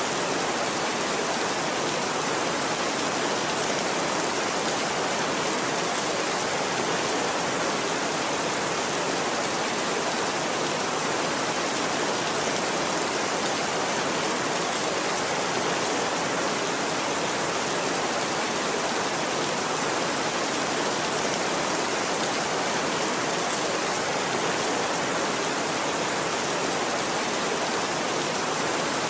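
Steady rain falling, an even hiss that does not let up or change.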